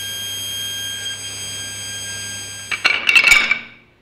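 Table saw and cordless drill running with a steady high whine and a low hum, as the drill turns square stock against the blade in a homemade dowel-making jig. Near the end the whine stops and there is a brief clatter of hard knocks and clinks.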